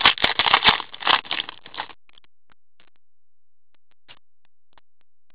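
Foil wrapper of an Upper Deck hockey card pack crinkling and tearing as it is ripped open by hand. This stops about two seconds in and gives way to a few faint rustles and ticks as the cards are handled.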